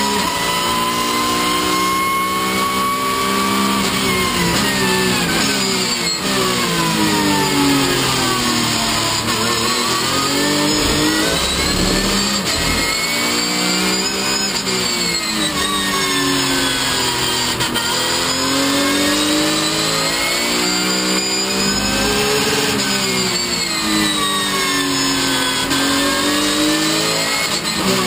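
Porsche 911 GT3 Cup race car's flat-six engine at racing speed, heard from inside the cockpit. The engine note climbs under acceleration and drops under braking and downshifts several times over as the car works through a run of corners.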